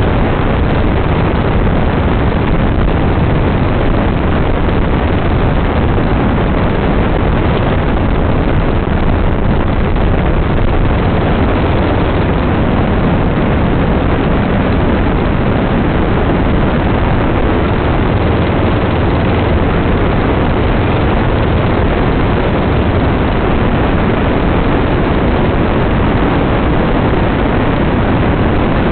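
Open dune buggy driving steadily along a sand beach: loud, constant engine noise mixed with rushing air, with no change in pace.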